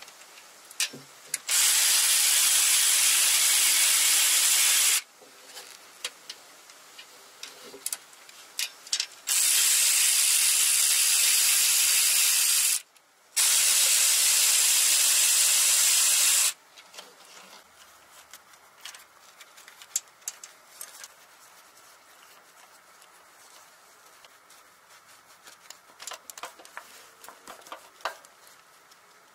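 A pneumatic air ratchet running in three bursts of a few seconds each, starting and stopping sharply with a steady hiss, as it spins out the 10 mm and 12 mm bolts holding the timing-chain tensioner and guides. Light metallic clicks of tools and parts fall between and after the bursts.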